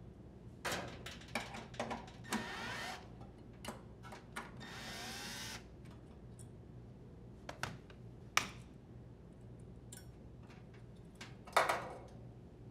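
Drill driver briefly whirring as it unthreads the two screws on the dryer's thermostat: two short runs a couple of seconds apart. Scattered clicks and a clatter near the end come from the screws and the thermostat being handled.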